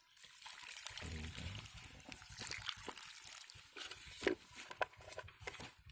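Fertilizer solution poured from a plastic bucket onto the potting medium of a potted water apple tree, splashing and soaking in, with one short sharp knock about four seconds in.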